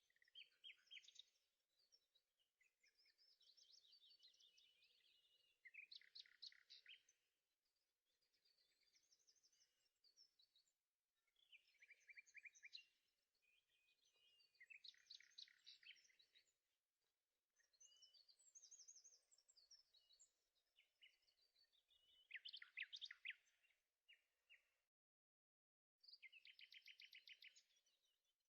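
Faint birdsong: a songbird singing short phrases of chirps and fast trills, repeated every few seconds.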